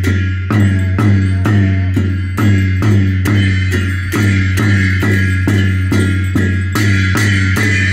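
Aji Lhamu dance music: a drum beating a steady rhythm of about two and a half strikes a second, with bright ringing metal held over the beat.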